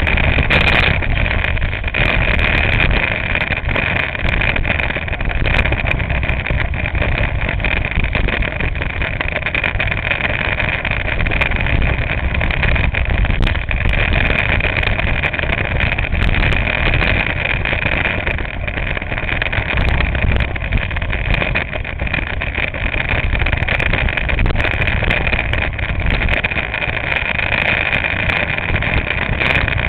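Go-kart engine running steadily as the kart laps, picked up by a camera mounted on the kart's nose.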